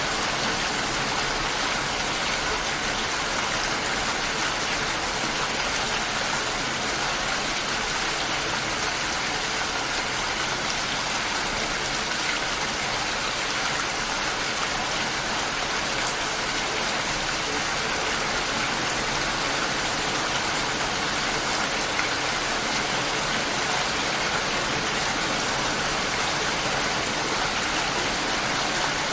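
Steady light rain falling, an even hiss that does not change.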